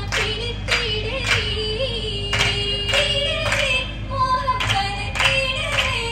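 Oppana song sung by female voices, with the dancers' hand claps landing together in time, about two a second.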